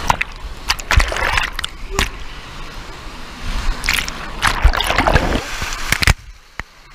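Fast-flowing water of a wild-river rapids ride churning and splashing over a handheld camera, with irregular loud splashes. It drops away suddenly about six seconds in.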